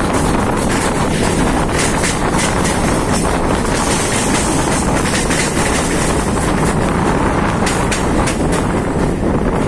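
Mumbai suburban electric local train running along the track, heard from on board: a steady rumble and rail noise with scattered clicks from the wheels.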